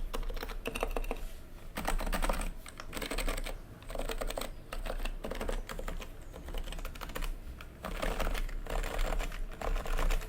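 Typing on a polycarbonate-cased keyboard with Realforce R2 Topre electrostatic capacitive switches: lubed sliders on 45 g rubber domes, with no foam inside the case. Dense runs of keystrokes, with short pauses between runs.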